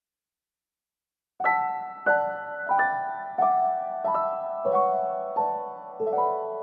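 Background music: a slow piano melody of single notes, about one every two-thirds of a second, starting after a second and a half of silence.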